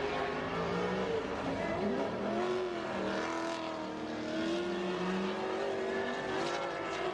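Two drift cars on a tandem run, their engines revving up and down at high rpm over the rushing noise of tyres spinning and sliding.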